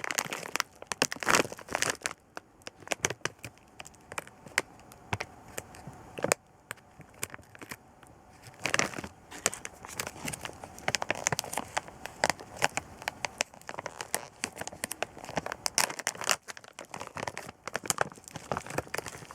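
Plastic wrapping of a pack of lollipops being handled and crinkled, an uneven run of crackles and rustles with scattered sharper clicks.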